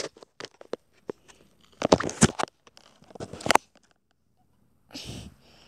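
Three bursts of scratchy rustling and clicks on a fluffy blanket, then a dull thump near the end: handling noise from the phone and the fabric.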